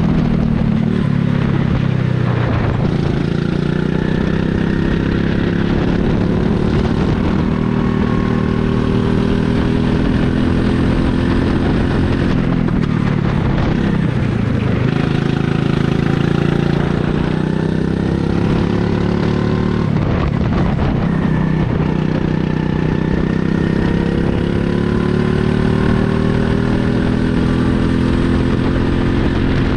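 Rental go-kart's small engine running hard on track. Its pitch drops several times as the throttle is lifted for corners, then climbs again under acceleration.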